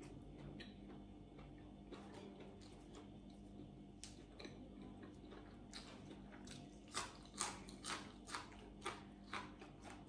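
Close-up chewing of crisp raw vegetable greens: faint scattered crunches, then from about seven seconds in a run of sharper crunches about two a second, over a low steady room hum.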